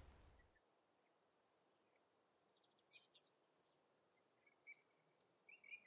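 Near silence: a faint, steady, high-pitched drone of insects, with a few faint bird chirps about halfway through and near the end.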